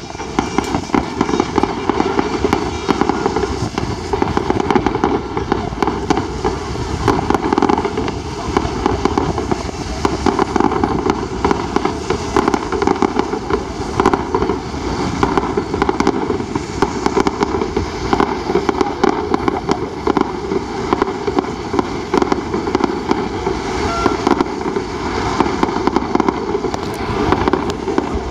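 Fireworks launched from the ground going off non-stop: a dense, continuous crackle of many rapid pops and bangs as columns of sparks shoot up and burst.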